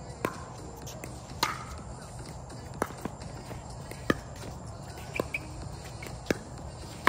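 Pickleball rally: sharp pops of paddles hitting the plastic ball, about seven strikes a little over a second apart.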